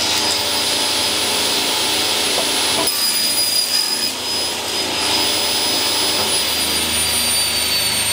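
Table saw running with the dust extractor as a wooden plank is crosscut on the saw's sled: a steady, loud machine noise with a high whine that drops slightly in pitch in the second half.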